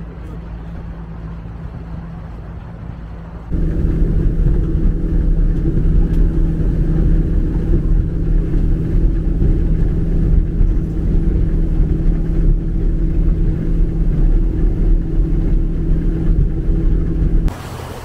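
An engine running steadily with a low hum. About three and a half seconds in it jumps suddenly to a much louder, deeper run with heavy rumble, which cuts off abruptly just before the end.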